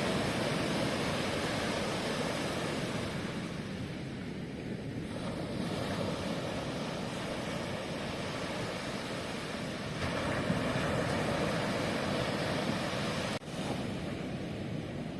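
Ocean surf breaking and washing up a beach: a steady rush that swells again about ten seconds in, with a momentary dropout near the end.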